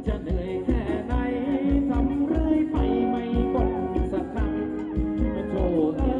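Thai ramwong dance music from a live band, with singing over a steady drum beat of about four beats a second.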